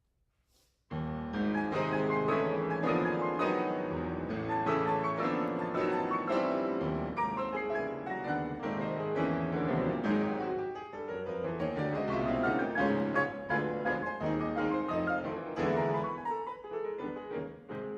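Piano ensemble playing a ragtime rhapsody, the music starting suddenly about a second in with dense, fast-moving notes.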